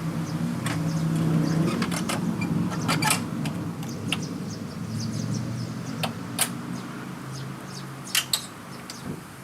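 Scattered sharp clicks and knocks of parts being handled and fitted as a pickup's front bumper goes back on, over a steady low engine hum that eases off after the first few seconds.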